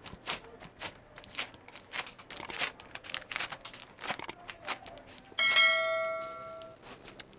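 Clear sticky tape crackling as it is dabbed on and pulled off a cotton t-shirt to pick up lint, a quick run of small crackles and peels. About five seconds in, a bell ding rings out and fades over a second and a half.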